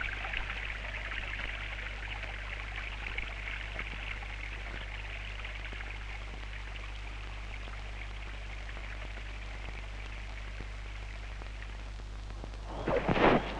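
Steady hiss with a constant low hum underneath: the background noise of an old film soundtrack. A voice begins near the end.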